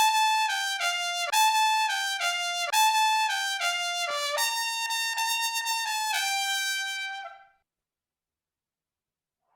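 Solo trumpet playing a tongued melody line of short notes with no accompaniment, recorded dry without added reverb. It stops about seven and a half seconds in.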